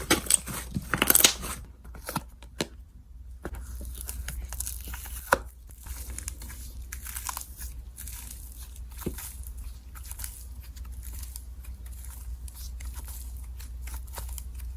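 Slime being squeezed and stretched by hand, with loud crackles and pops in the first second or so. After a short pause, a steady stream of faint crackling clicks follows.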